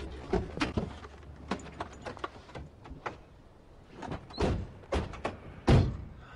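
A door being worked: an irregular string of clicks and knocks, with heavier thuds about four and a half and five seconds in, and the loudest knock near the end.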